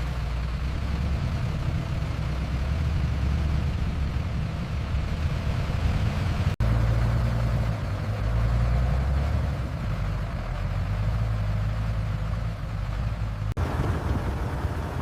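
Heavy vehicle engine running steadily, a low rumble, broken by two brief dropouts about six and a half and thirteen and a half seconds in.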